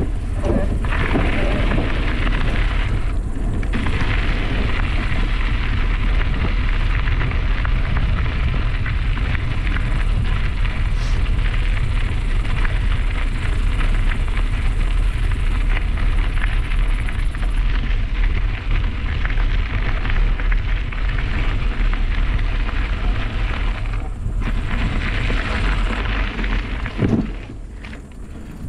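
Wind rumbling on the microphone of a camera carried on a moving mountain bike, over the steady hiss of tyres rolling on a gravel path. The noise drops off near the end as the bike slows.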